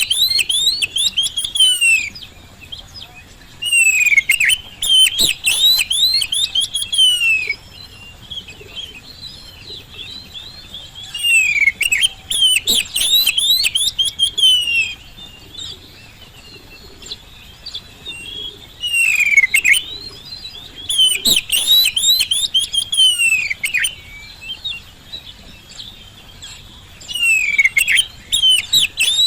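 Oriental magpie-robin (kacer) singing: loud bursts of rapid, sweeping high notes a few seconds long, about five bouts, with softer twittering in the gaps between them.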